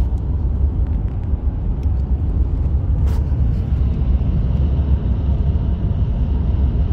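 Car driving on the road, a steady low rumble of engine and tyre noise.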